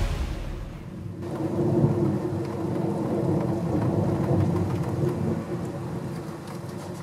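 Rolling thunder rumbling over steady rain: the rumble swells about a second in and slowly dies away.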